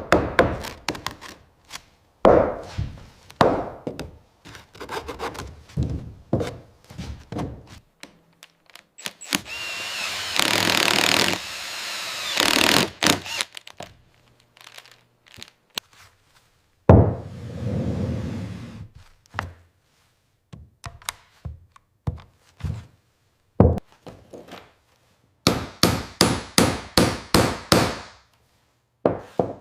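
Workshop sounds: a string of separate knocks and thuds, with a few seconds of steady noisy tool sound a third of the way in and a quick run of sharp taps near the end.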